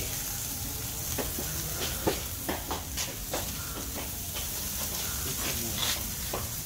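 Marinated ranchera steak sizzling on a hot charcoal grill grate, a steady hiss with scattered crackles and pops.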